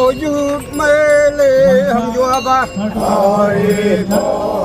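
Voices chanting or singing together in long, wavering held notes.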